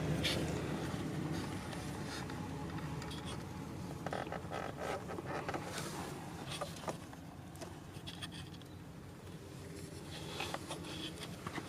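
Quiet handling noise: scattered light clicks and rustles over a faint steady low hum.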